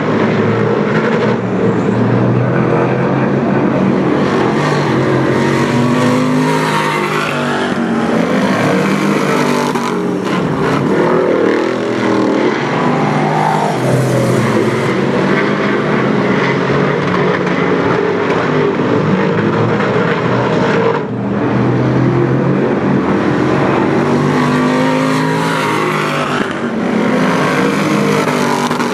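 Dirt-track race car's V8 engine running hard as it laps the oval, its pitch rising and falling again and again as it goes off and back on the throttle.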